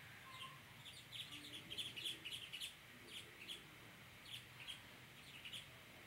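Small yellow finches (canarios) singing in a run of short, high chirps, thickest in the first few seconds and then more scattered.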